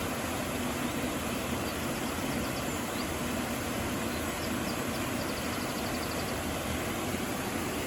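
Rushing water of a river and waterfalls, a steady unbroken rush from low to high pitch. Faint high chirps come in about halfway through.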